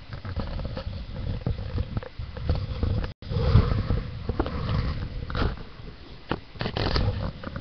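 Close handling noise: an irregular low rumble with scattered clicks and knocks as plastic toy figures are moved about near the microphone. The sound cuts out for an instant about three seconds in.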